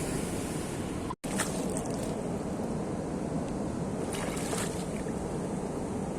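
Sea surf washing on the shore with wind buffeting the microphone, a steady rushing noise broken by a brief cut about a second in.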